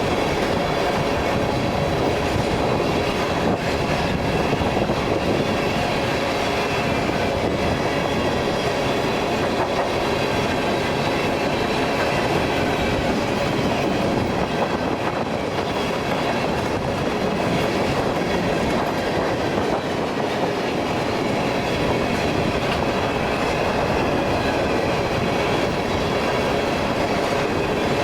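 A loaded tank-car freight train rolling steadily past, with continuous wheel-on-rail noise and the clickety-clack of wheels over the rail joints.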